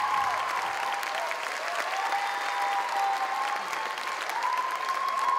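Audience applauding, with long, high cheers rising and falling over the clapping.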